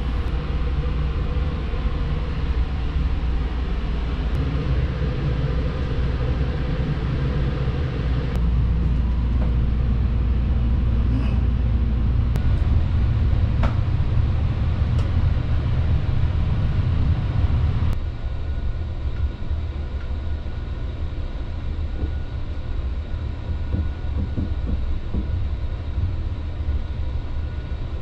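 Steady low rumble inside the cars of the Sunrise Seto sleeper train, with a few faint clicks. The rumble changes abruptly about eight seconds in and drops in level about eighteen seconds in.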